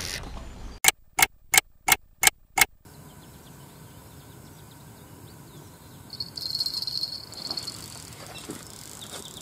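Six sharp clicks in quick succession about a second in, then a high-pitched insect buzz lasting about a second, over quiet outdoor background.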